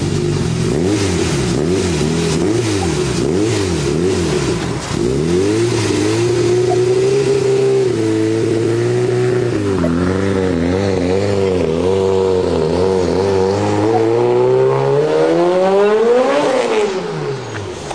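Turbocharged Honda CRX del Sol four-cylinder engine revved up and down repeatedly, then held and blipped. It then climbs in one long rise under hard acceleration, peaks near the end and drops away as the car pulls off.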